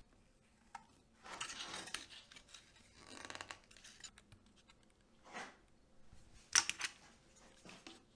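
Utility knife blade scraping and cutting through a thin wooden dowel on a cutting mat, in several short strokes. The sharpest stroke comes about six and a half seconds in.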